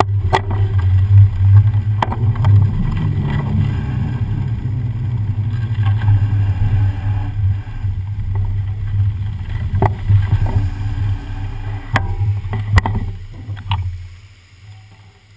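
Mountain bike's knobby tyres rolling through standing rainwater on a wet road, with a strong low wind rumble on the bike-mounted camera's microphone and a few sharp knocks from bumps. The noise dies away near the end.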